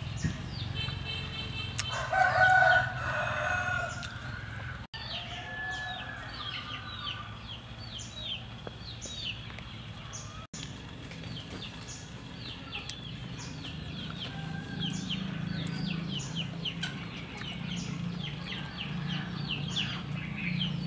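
A rooster crows once about two seconds in, the loudest sound. After it, short high chirps repeat steadily, with a low hum underneath.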